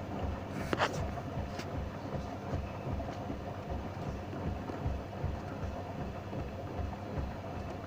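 Hoover washing machine running, with a rhythmic low thumping about twice a second over a steady hum. There is a brief swish about a second in.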